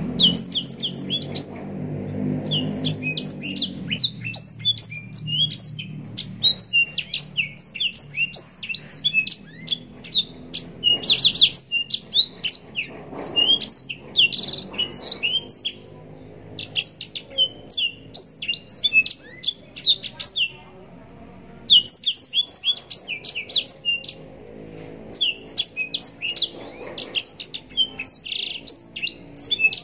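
Black-throated canary (blackthroat) singing a long, fast run of high twittering trills and chirps, broken by a couple of short pauses about two-thirds of the way through.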